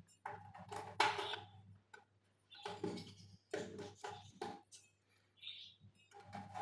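Irregular small clicks and knocks of plastic fluorescent-tube starters being twisted out of and into their sockets on the metal frame of an insect-killer, over a faint low hum.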